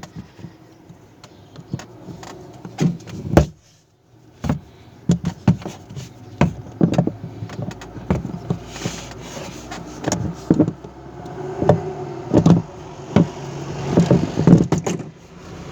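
Irregular knocks, clicks and scraping of hands and tools working a seal out of a washing machine's spin-dryer tub.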